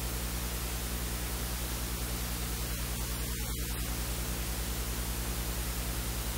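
Steady hiss with a low electrical hum, the recording's own noise floor; no kitchen sound stands out above it.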